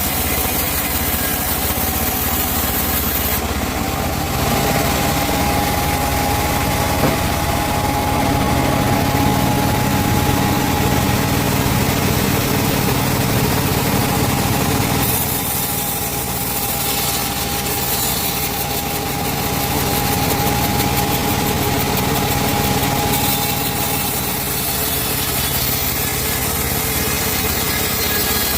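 Large two-stroke chainsaw running steadily while ripping a teak log lengthwise, its note shifting about four seconds and again about fifteen seconds in.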